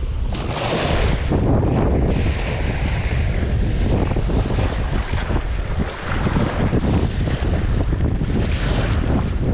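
Strong wind buffeting the microphone over choppy lake water, with waves washing and splashing.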